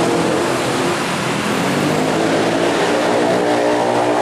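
Diesel engines of a pair of diesel-electric locomotives heading a container train, running steadily as they pass close by, over a broad rumble from the train. The engine note strengthens about three seconds in as the locomotives draw near.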